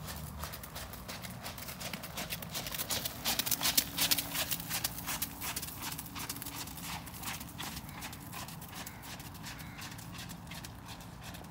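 Horse's hoofbeats on wet arena footing as it is ridden past. The strikes grow louder to a peak about four seconds in, then fade as the horse moves away.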